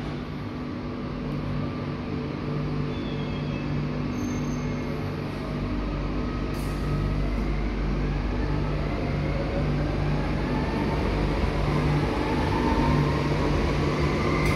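Renfe Cercanías Civia electric train pulling into a covered underground station: a steady electric hum and a rumble of wheels on rail that grow louder as the train approaches and runs past, with a faint rising whine in the second half.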